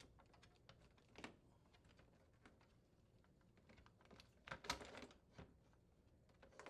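Faint plastic clicks and knocks as a refrigerator ice maker assembly is worked free of its retaining tab and pulled out, with a louder cluster of clatter about four and a half seconds in.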